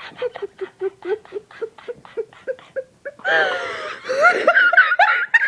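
A person laughing: a run of short, even, pitched 'ha' pulses, about five a second, breaking about three seconds in into a louder, breathy, squealing laugh whose pitch slides up and down.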